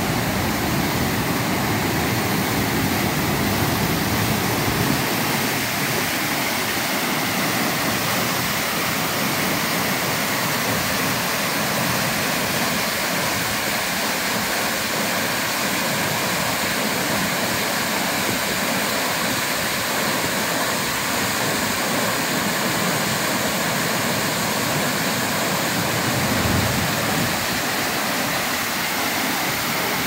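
Tiered waterfall cascading over rocks: a steady, full rush of white water.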